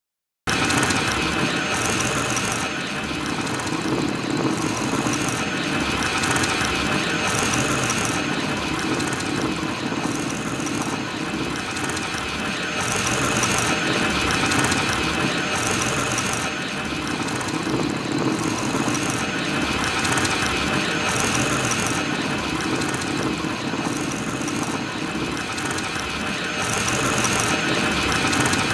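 BB-9E droid's normal-speed rolling sound effect: a steady mechanical whirring and grinding of the rolling droid, with a regular rise and fall.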